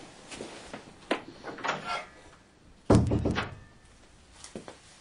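A heavy thump about three seconds in with a short rattle after it, among lighter knocks and clicks.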